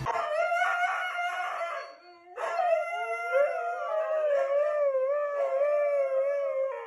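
Huskies howling: one held howl for about two seconds, a brief break, then a long howl whose pitch slides up and down.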